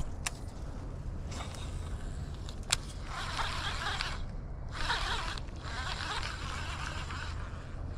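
Fishing reel being cranked in short spells, winding in line that has snagged something in the pond, with a couple of sharp clicks, over a steady low rumble.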